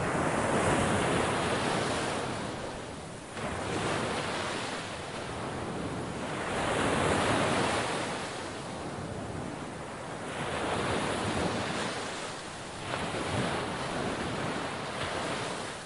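Ocean surf: waves washing in and drawing back, the rushing noise swelling and fading every three to four seconds.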